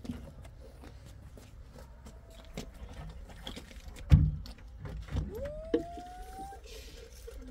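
Dish-washing and water-handling sounds from a plastic basin and a plastic water jerrycan. A loud dull thump about four seconds in and two lighter knocks after it come as the jerrycan is lifted and handled. A short whistle-like tone rises quickly and then holds for about a second.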